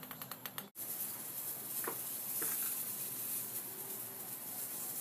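Ping pong ball bouncing on a hard surface: a quick run of about eight light, evenly spaced clicks in under a second that stops abruptly, followed by a steady hiss.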